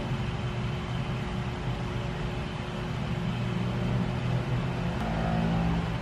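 Steady low rumbling background noise, like traffic or a fan running, with a single faint click about five seconds in.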